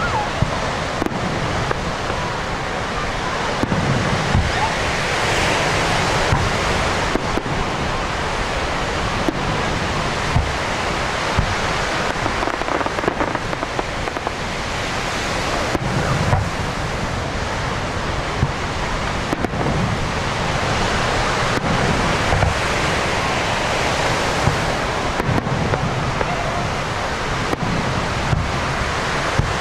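Fireworks going off in a dense, continuous barrage: constant crackling with frequent sharp bangs and repeated low booms.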